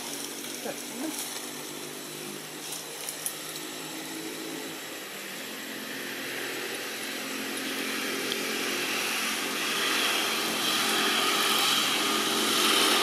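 A small engine running with a steady hum, joined in the second half by a rising hiss that grows louder toward the end.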